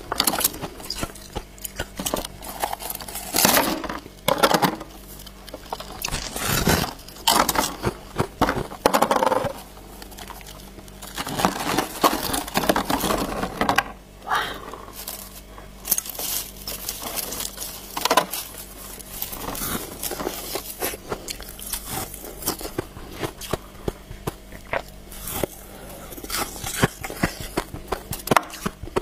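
Balloon ice being bitten, crunched and broken apart by hand: an irregular string of sharp cracks, crunches and scrapes of brittle ice.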